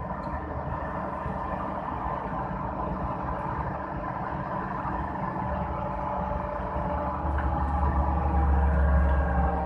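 Hydraulic excavator's diesel engine running steadily while digging. Near the end it grows louder and deeper for a couple of seconds.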